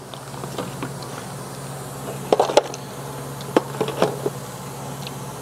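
A steady electric motor hum runs throughout, plausibly the tool grinder's motor. A handful of sharp clinks and knocks come in two small clusters, about two and a half and four seconds in, as small metal tools are handled while a worn end mill is hunted out.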